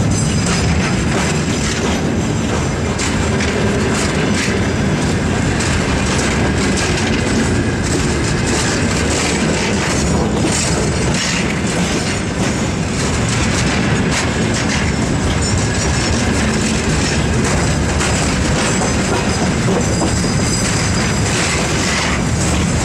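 Freight train of covered hopper wagons rolling past, a steady loud rumble of steel wheels on rails with repeated clicks as the wheelsets cross rail joints.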